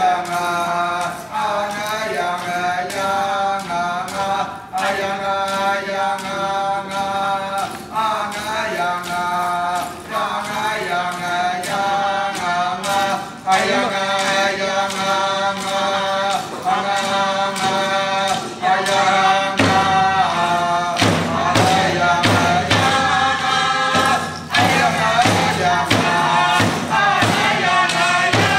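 Alaska Native dance song: a group of men and women chanting in unison to large hand-held frame drums beaten with thin sticks. About two-thirds of the way through, the drumming turns into a steady, driving beat under the singing.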